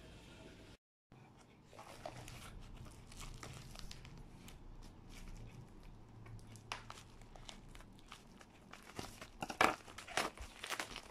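Scissors cutting open a plastic mailer bag, then the plastic crinkling and rustling as the bag is handled and pulled open. The crinkling is loudest near the end.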